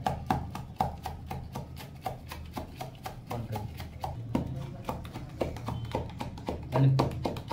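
Wooden rolling pin pounding chopped garlic and green chillies in a steel tumbler, used as a makeshift mortar and pestle: repeated knocks, a few each second, as the pin strikes the bottom of the tumbler.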